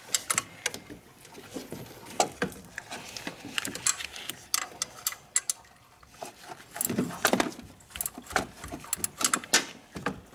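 Irregular metallic clicks and clinks of a socket and wrench being handled and fitted onto the water pump pulley bolts.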